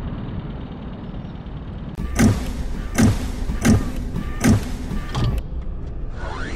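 Low steady rumble for about two seconds, then the sound effects of an animated outro: four heavy metallic stomps of a walking robot, about three-quarters of a second apart, followed near the end by whooshing sweeps that rise and fall.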